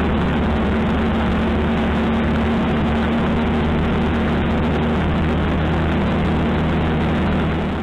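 Small 50cc piston-valve two-stroke engine of a motorized bicycle running steadily under way, with wind and road noise over it. The sound drops away at the very end.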